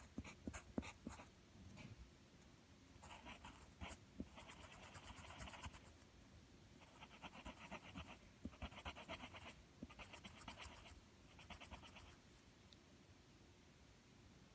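Pencil on paper, faint: a few sharp taps, then several short bursts of fast back-and-forth scribbling as numbers are written and a small paw print is shaded in.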